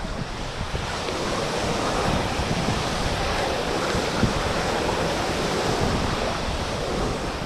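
Steady rush of moving water with a low, buffeting rumble on a wet GoPro microphone.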